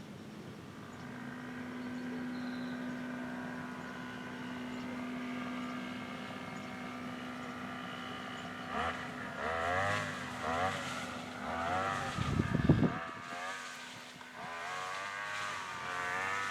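Grass trimmer running: a steady hum at first, then from about halfway its pitch swings up and down over and over as it is revved. A brief low thump comes partway through the revving.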